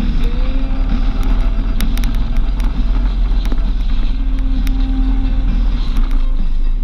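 A vehicle driving at road speed, heard from the vehicle itself: a steady low rumble of engine, tyres and wind, with a faint engine hum and scattered light ticks.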